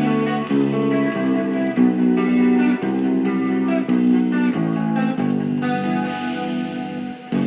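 Guitar-led music playing back, with notes changing every half second or so. It is most likely an MP3 decoded by AmigaAMP on an Amiga 4000 and played through its Prelude Zorro II sound card.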